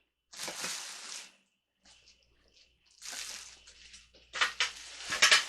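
Hands handling a new stand mixer: two rustling swishes, then a quick run of light clicks and knocks near the end.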